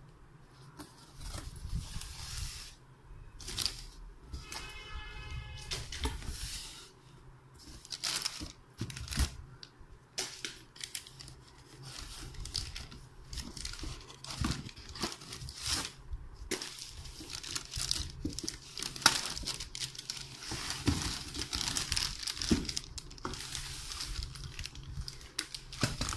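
Clear plastic wrapping crinkling and rustling in irregular crackles, with cardboard box flaps being handled, as a pressure cooker in its plastic bag is taken out of its carton.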